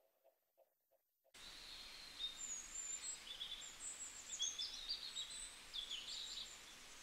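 Birds chirping and twittering over a faint steady outdoor hiss, starting about a second and a half in after near silence.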